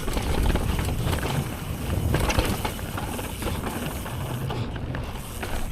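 Mountain bike being ridden along a dirt trail: tyres on dirt and the bike rattling over bumps, with wind buffeting the microphone as a steady low rumble.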